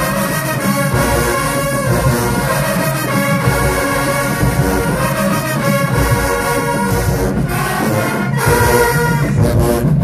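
HBCU marching band playing loudly in the bleachers: full brass section of sousaphones, trumpets and trombones.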